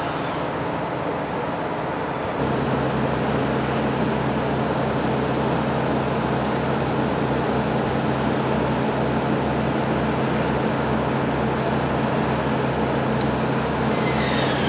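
Steady machinery hum and roar that gets louder about two seconds in, with a low pulsing throb underneath and a high squeal falling in pitch near the end.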